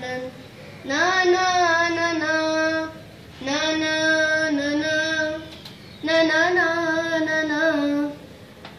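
A child singing a wordless tune in three long phrases of about two seconds each, with short breaks between them. Each phrase holds a fairly steady note with small wobbles in pitch.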